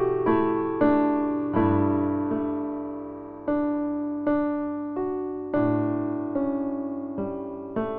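Background music: slow solo piano, notes and chords struck about once a second, each fading away before the next.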